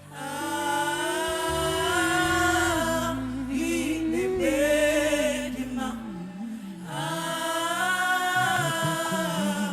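Worship song sung mostly a cappella: voices hold two long, slow sung phrases, with a short break about six seconds in. A faint low sustained note sits under the first phrase.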